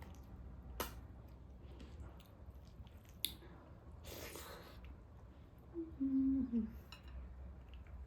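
A person eating: close mouth sounds of chewing, with a few sharp clicks and a breathy swell. About six seconds in comes a short low voiced hum that dips in pitch at its end.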